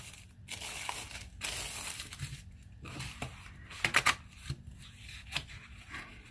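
Clear plastic sleeve crinkling and rustling as it is peeled off a paper notebook insert and the booklet is handled, irregular, with a few sharper crackles about four seconds in.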